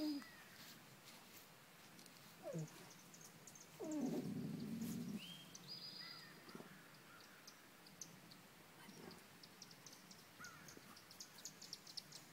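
Dogs whining with excitement while hunting a chipmunk under a car: a short whine falling in pitch about two and a half seconds in, then a louder, longer whine around four seconds in. Faint quick ticking and rustling follow as they nose through the grass.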